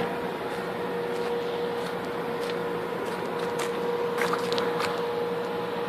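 Steady industrial hum and rumble from the JLEC thermal power plant, with a constant droning tone; a few faint short ticks about four seconds in.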